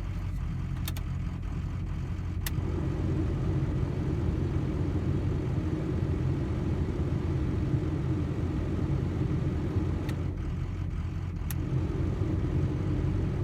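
Ford 6.0 Powerstroke V8 turbodiesel idling warm with no load, with an uneven, loping idle. A mid-range note comes in about two and a half seconds in, drops out near ten seconds and returns. The lope is the sign of 155 cc plugged spill-port injectors running without the proper tune.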